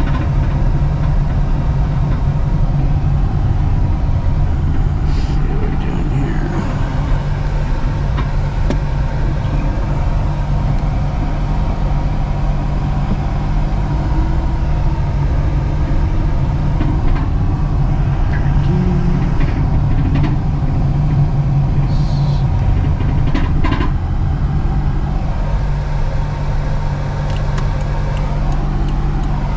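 Steady engine and road noise heard from inside a car's cabin while driving, with a few faint ticks and clicks.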